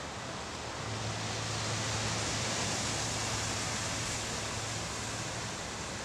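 Ocean surf washing against shoreline rocks, a steady hiss that swells about two seconds in and eases off toward the end. A low steady hum runs underneath from about a second in.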